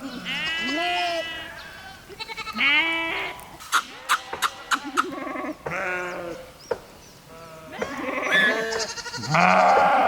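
A flock of sheep bleating, several animals calling over one another, with a handful of short sharp clicks about four to five seconds in.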